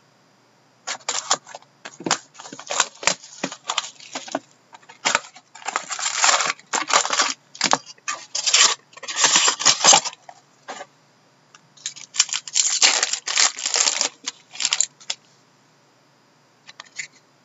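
Cardboard and wrapper packaging of a box of hockey trading cards being slit, torn and crinkled open, in irregular bursts of rustling and crackling. There is a short pause about ten seconds in, and it goes quiet near the end.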